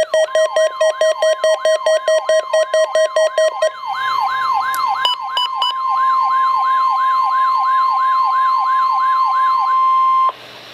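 NOAA weather radio receivers sounding the alert for a Required Weekly Test. A steady tone near 1 kHz, the 1050 Hz NOAA warning alarm tone, runs under a beep repeating about three times a second for the first few seconds and a falling siren-like sweep repeating about three times a second. The alarm cuts off suddenly near the end, leaving faint radio hiss.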